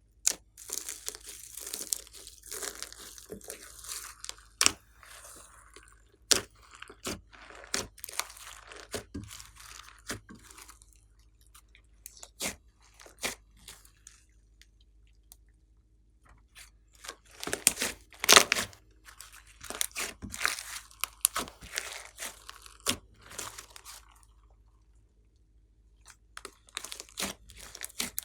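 Slime being kneaded and squished by hand: bursts of crackling with sharp popping clicks, broken by a few quiet pauses.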